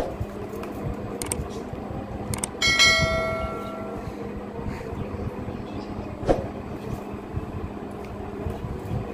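Subscribe-button animation sound effect: a few sharp clicks, then a bell chime about three seconds in that rings out and fades over about a second. A steady fan hum runs underneath.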